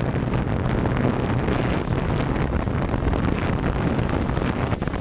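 Wind buffeting the microphone of a camera mounted on a flying multirotor drone, with the steady sound of its motors and propellers running underneath.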